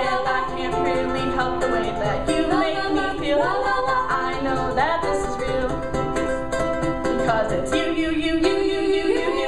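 Song with ukulele accompaniment and a sung vocal line, the voice sliding up into several notes.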